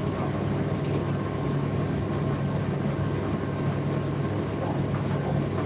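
Indesit IDC8T3 8 kg condenser tumble dryer running: a steady motor-and-drum drone with a low hum, and a few faint ticks.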